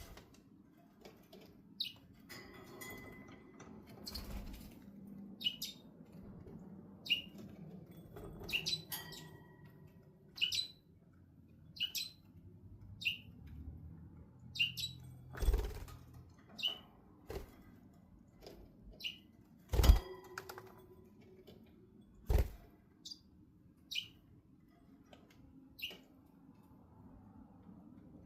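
Budgie chirping in short, high calls, about one a second, with wings fluttering and a few dull thumps in between.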